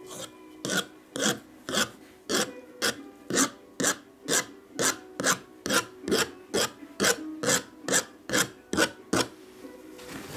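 Metal palette knife scratching lines into thick wet oil paint on a canvas panel, in quick rasping strokes about two a second, stopping shortly before the end.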